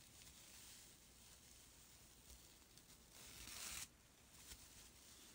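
Sparkly acrylic scrubber yarn rasping as it is pulled through the crocheted fabric. A short scraping pull a little after three seconds in grows louder and stops abruptly, over faint rustling of the scrubber being handled.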